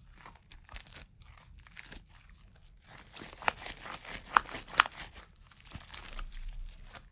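Hands kneading and stretching clay-mixed slime, giving irregular crackling and squishing, with three louder sharp pops in the middle.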